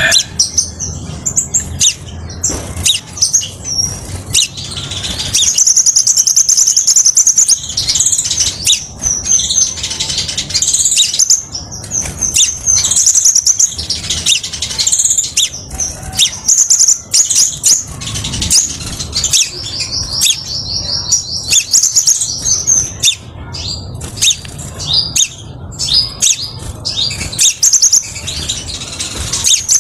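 Crimson sunbird singing a clear song: rapid, high-pitched chirps and trills in runs of a second or two, repeated with short pauses.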